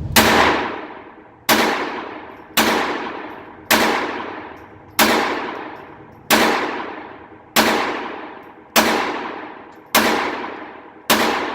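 Phoenix Arms .22 LR semi-automatic pistol firing Remington Thunderbolt rounds, ten shots at a steady pace a little over a second apart. Each shot is followed by a long ring-out.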